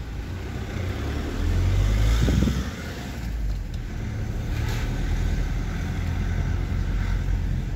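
Car driving along a street, heard from inside the cabin: a steady low rumble of engine and tyres, swelling louder for a moment about two seconds in.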